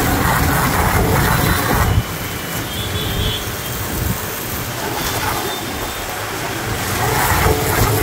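A 3 HP, 160 bar high-pressure washer running at full pressure, its water jet hissing against a scooter and the dirt ground. The sound is louder for the first two seconds, drops, and swells again from about seven seconds in.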